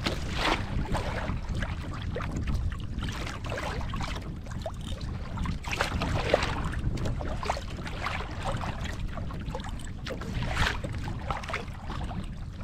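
Water splashing and lapping against a kayak's hull at sea, in irregular slaps, over a steady rumble of wind on the microphone.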